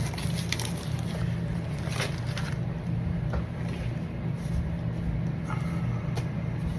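A steady low hum, with a few faint clicks and rustles over it.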